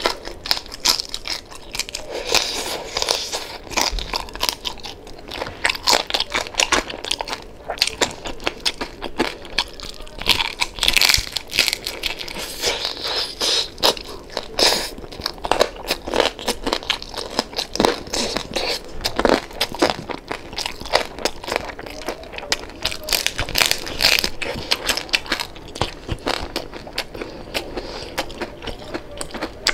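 Close-up eating of crispy pata, deep-fried pork knuckle: crispy skin crunching and crackling under the teeth, with chewing in between.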